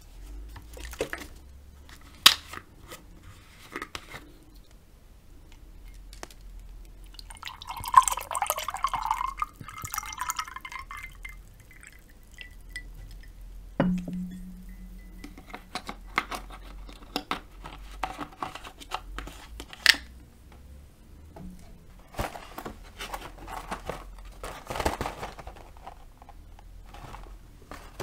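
Apple juice poured from a carton into a glass mug, a splashing pour lasting about three seconds. Scattered sharp clicks and knocks of tableware come before and after it, the loudest about two seconds in and near twenty seconds, with a short low ringing knock soon after the pour.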